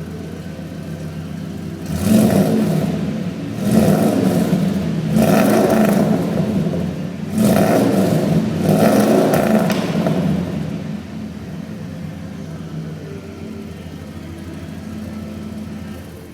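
1996 Ford F-150 engine with long-tube headers and a custom exhaust, idling, then revved about five times before settling back to a steady idle.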